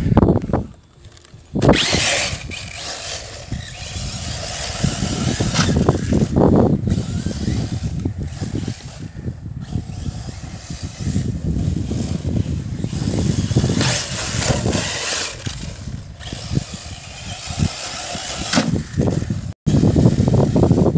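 Arrma Typhon 1/8 RC buggy on a 6S battery running hard on a grass track: brushless electric motor, drivetrain and tyres, the sound swelling and fading repeatedly as it accelerates and slows. There is a short quiet dip about a second in.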